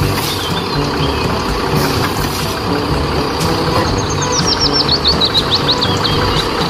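Concrete mixer truck's diesel engine running under a concrete batching plant, a dense, steady machine rumble. A bird chirps rapidly for about two seconds past the middle.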